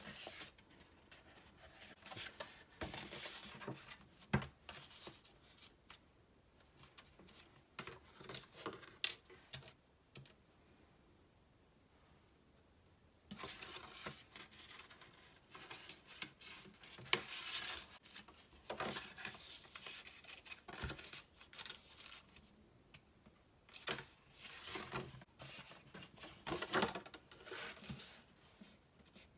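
Paper rustling and crinkling as a paper envelope is folded, turned and pressed by hand, in uneven bursts with a pause of a few seconds about a third of the way in.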